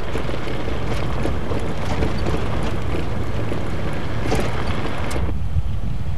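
Vehicle driving over a rough dirt track: a steady low rumble of engine and tyres, with wind buffeting the microphone. The higher hiss drops away about five seconds in.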